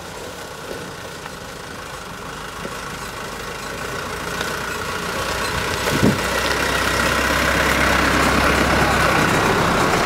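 Hino bus's diesel engine running and growing steadily louder as the bus approaches, with a single knock about six seconds in.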